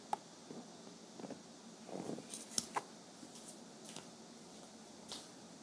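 Quiet room with a few faint, scattered clicks and light taps, the sharpest two close together a little past halfway.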